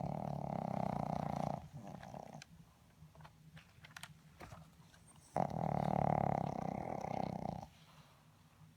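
Dog snoring in its sleep: two long snores, one at the start and one about five seconds in, each lasting about two seconds. Faint ticks fall between them.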